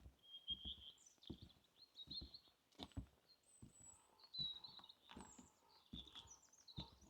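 Footsteps on a forest path at a steady walking pace, with several songbirds chirping and trilling over them.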